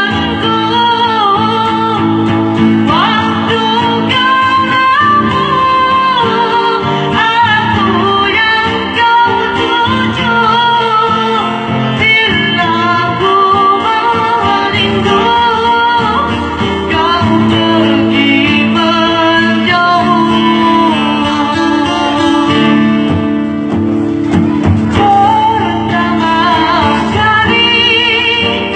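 A woman singing a slow melody into a microphone, accompanied by an acoustic guitar.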